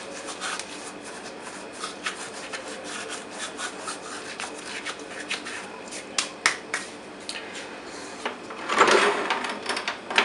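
Dried thyme being rubbed and crumbled between the palms: a steady crackly rustle of many small dry crackles, with a louder burst of noise near the end.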